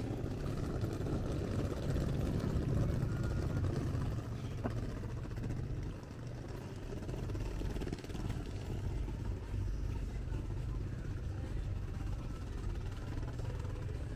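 Low rumbling of wind buffeting the camera microphone, flickering unevenly throughout.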